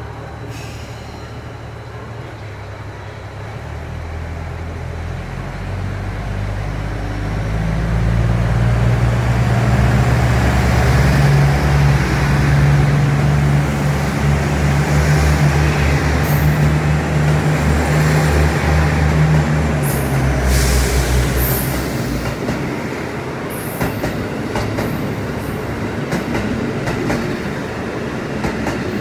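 JR Central KiHa 85 diesel express train pulling away from the platform and passing close by. Its Cummins diesel engines build to a loud, steady drone as it accelerates, then ease off, and the wheels click over the rail joints in the last several seconds.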